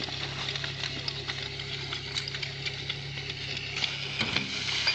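Portable fire pump's engine running steadily, with clattering of hose couplings and a rising hiss of spraying water near the end.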